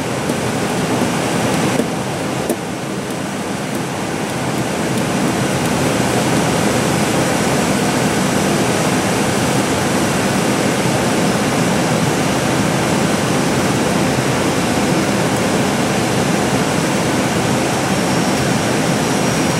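Steady rushing cockpit noise of an Airbus A320 on final approach, airflow and engines blended into one even hiss, growing a little louder about five seconds in and then holding steady.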